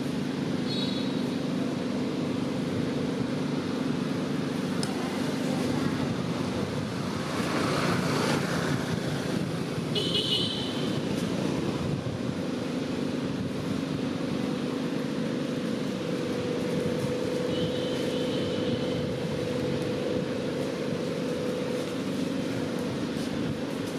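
Steady motor-like hum running throughout, with short high-pitched chirps a few times: at the start, about ten seconds in and again in the later part.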